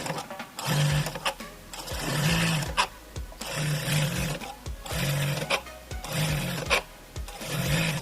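Sun Special SS998D4 electronic lockstitch industrial sewing machine, run in short bursts about once a second, each ending with a loud whistle and a click as the needle-positioning stop engages. The noise comes from a badly worn coupling between the motor and the machine's main shaft.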